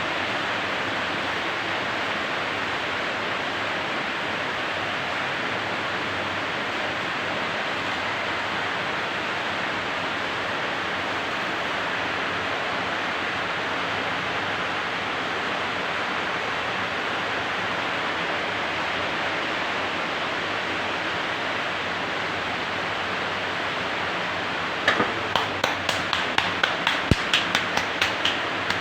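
A steady hiss-like noise, then near the end a quick run of about fifteen sharp taps or clicks, roughly four a second.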